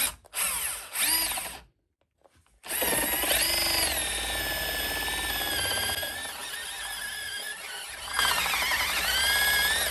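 Bosch UniversalHammer 18V cordless rotary hammer driving a 50 mm Forstner bit into wood. It starts with a few short trigger blips as the motor spins up and down, then runs steadily under load, its pitch sagging and recovering as the bit bites; part of the run is fast-forwarded. It copes with the 50 mm Forstner without major trouble.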